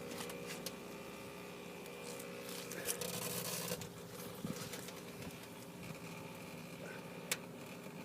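Microwave oven running with a steady hum, with scattered sharp crackles and a brief hissing burst about three seconds in: arcing from the metal can of beans and copper pieces inside.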